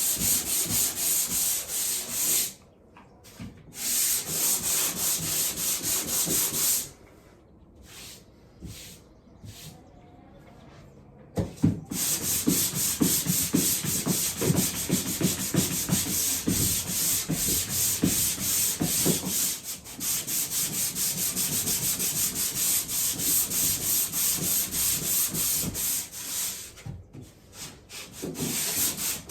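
Hand sanding a drywall patch with coarse 100-grit sandpaper: quick back-and-forth scraping strokes, with short breaks about 2.5 s in, from about 7 to 11 s in, and briefly near the end.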